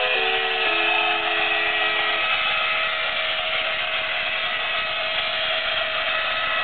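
Steady mechanical whirring, like small motors running, with a few fixed tones in it. The last notes of a simple tune sound over it for about the first two seconds, then stop.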